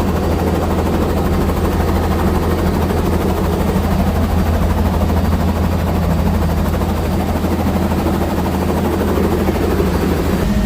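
Helicopter's turbine engine and rotors running steadily in flight, heard from inside the cabin as a loud, even low drone.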